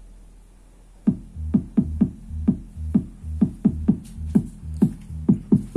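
Electronic DJ dance track played through an active speaker with a passive 18-inch subwoofer driven from the active kit's 8-ohm output. After a quiet lead-in, about a second in a kick drum starts hitting about three times a second in an uneven, syncopated pattern over a steady bass tone. The owner finds the sub loud enough on this output, but without punch in the chest.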